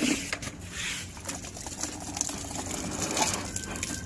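Water from a pipe splashing into a plastic bucket and onto the concrete floor, a steady rattling splash.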